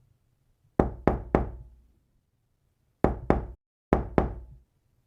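Knocking in short groups: three quick knocks about a second in, then two pairs of knocks a little apart, with silence between the groups.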